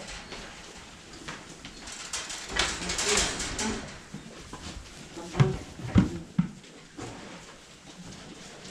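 Rustling, then three dull knocks in quick succession a little past halfway.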